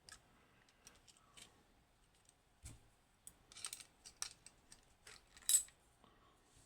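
Small metal lever-lock parts clicking and clinking as they are handled: a scatter of light taps, the loudest about five and a half seconds in.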